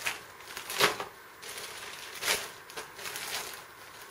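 Clear plastic bag of small parts crinkling and rustling as it is handled, with two louder rustles, one about a second in and one a little past two seconds.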